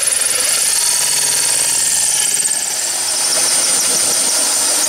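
Cordless drill spinning a hole saw that cuts through fiber-cement (HardiePlank) siding: a steady, continuous run with a high whine over the noise of the cut.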